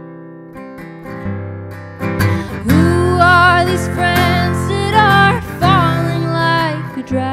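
Acoustic guitar strummed softly, then a woman's singing voice comes in about two and a half seconds in over the guitar, with a waver on her held notes.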